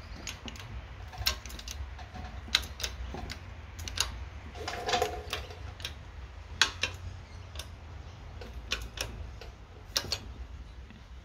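Shop press forcing a new U-joint bearing cap into a Subaru tailshaft yoke: irregular metal clicks and ticks, with a short creak about five seconds in.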